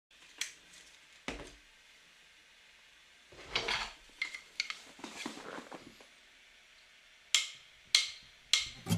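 Small hard objects being handled: scattered sharp clicks and knocks, with two short stretches of scraping and rustling between them and a quicker run of four clicks near the end.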